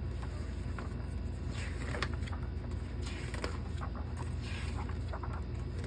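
Rustling and soft flaps of a paper rulebook's pages being turned and handled, a few times, over a steady low hum.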